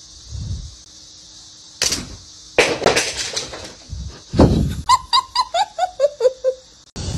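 Knocks and thumps as a cat scrambles off a bed, the heaviest thump a little after halfway, followed by a quick falling run of about ten pitched notes.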